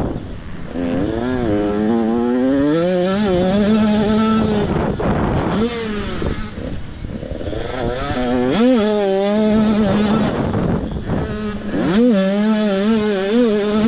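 Small motocross bike engines revving hard. The pitch climbs in repeated sweeps as the bikes accelerate through the gears and wavers as the throttle is worked, with more than one bike heard at once at times.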